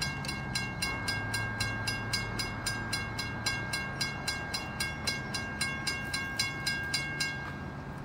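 Railroad crossing bell ringing in rapid, even strokes while the crossing gates lower, then stopping about seven seconds in as the gates come fully down.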